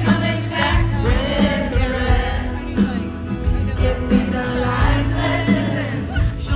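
Live country band playing with singing, recorded on a phone from within the concert audience.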